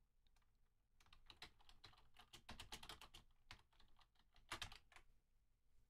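Faint typing on a computer keyboard: a quick run of key clicks that starts about a second in and stops about five seconds in.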